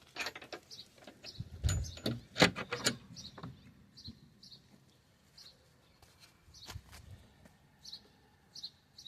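Small birds chirping in short high notes, repeating every second or so. A quick run of knocks and clatter comes in the first three seconds, loudest about two and a half seconds in, with one more knock near seven seconds.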